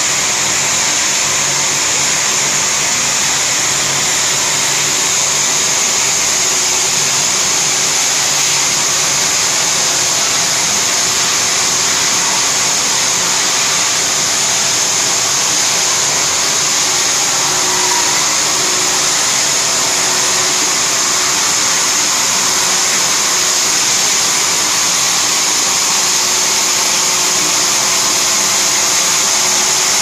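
A vial external washing machine and its conveyor line running: a steady, loud, high hiss with a faint low hum beneath it.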